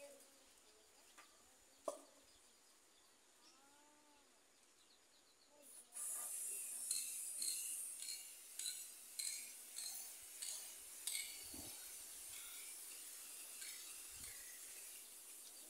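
A single sharp click about two seconds in. Then, about six seconds in, an aerosol spray-paint can starts hissing in short bursts, about two a second, as paint goes onto a metal awning pole.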